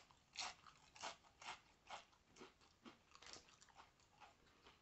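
Crunchy chips being chewed with the mouth close to the microphone, a steady run of crunches about two a second that fade near the end.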